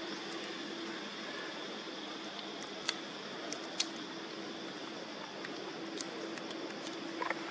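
Steady outdoor background hiss with a faint high steady tone, broken by two sharp clicks about three and four seconds in.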